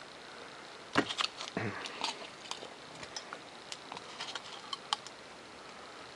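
Light, scattered clicks and taps of Depron foam airframe pieces being handled on the work surface, the sharpest knock about a second in.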